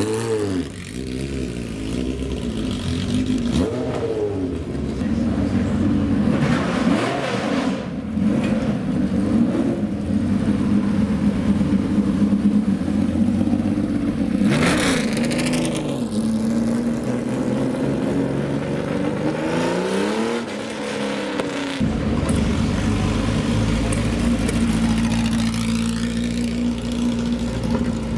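Historic race car engines revving, their pitch repeatedly rising and falling as they accelerate and change gear. From about twenty-two seconds in, a deep, steady engine idle takes over.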